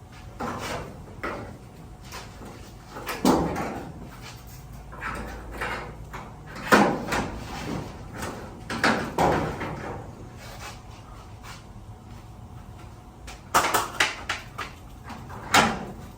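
Irregular knocks, clanks and scrapes from a bent garage door and its hardware being handled, with a cluster of sharp knocks near the end.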